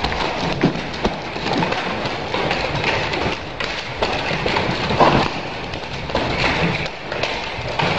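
A pair of nunchaku being swung and spun in a fast routine: scattered sharp knocks and clacks over a steady rushing noise.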